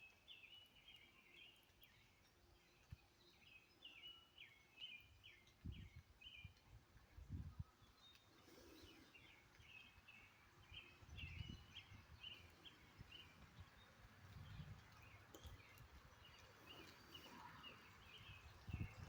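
Faint songbirds chirping outdoors in repeated quick runs of short high notes, with a few soft low thumps.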